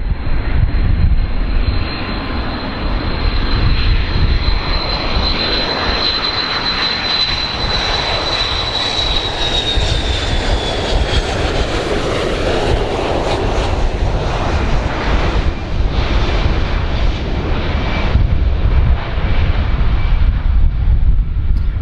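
Large airplane's engines running loud and steady: a deep rumble with a high whine over it that falls slightly in pitch about ten seconds in.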